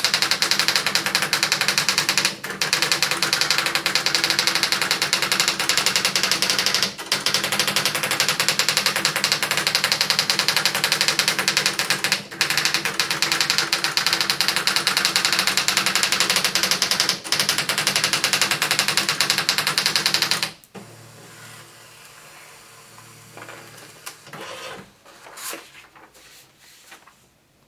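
Tandy WP-100 electric typewriter printing by itself in a fast, continuous clatter, with short breaks about every five seconds. It is malfunctioning, typing out random gibberish for no known reason. About two-thirds of the way through the printing stops abruptly, leaving a faint low hum and a few light clicks.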